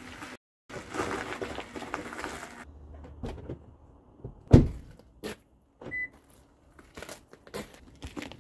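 Household handling noises: a couple of seconds of dense noise, then one heavy thump, a few scattered clicks and knocks, and a short high beep.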